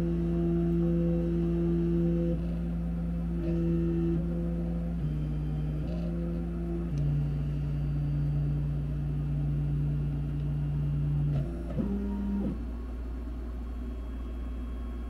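Stepper motors of a GarageWorx hobby CNC driving a drag-knife vinyl cutter, whining in steady tones that jump to a new pitch each time the cutting head changes direction or speed, over a steady low hum.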